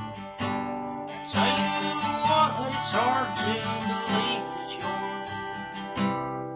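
Acoustic guitar strummed, its chords ringing on between strokes. From about a second in to about four seconds, a man's voice sings a wavering phrase over it.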